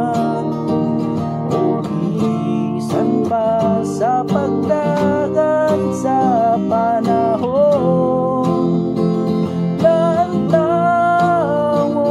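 Acoustic guitar strummed in steady chords as song accompaniment, with a sliding, wavering melody line carried above it.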